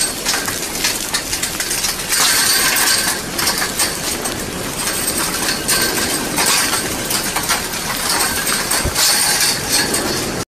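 Glassy clinking and crackling of a lava flow, its cooled crust cracking and its chunks tumbling as it advances. There are several louder spells.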